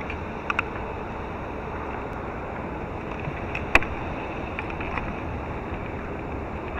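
Steady wind and water noise with wind rumbling on the microphone, broken by a couple of small clicks and one sharp click a little past the middle as a small camera is handled and fitted onto its pole mount.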